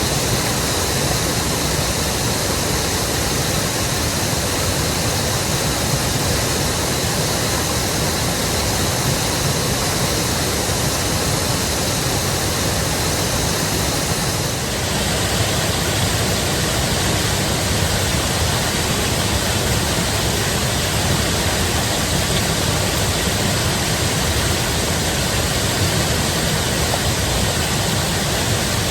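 Creek swollen after a heavy rain, its water rushing loudly and steadily. Its sound changes abruptly about halfway through, becoming hissier.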